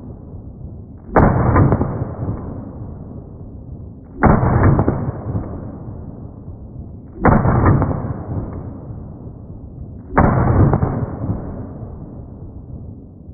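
Glock 19 pistol shots: four sudden shots about three seconds apart, each with a long fading tail.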